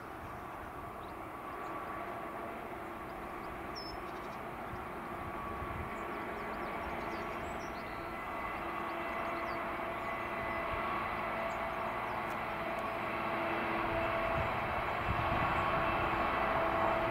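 Class 66 diesel-electric freight locomotive's two-stroke diesel engine running under power as it hauls a train of box wagons, a steady drone that grows gradually louder as it approaches.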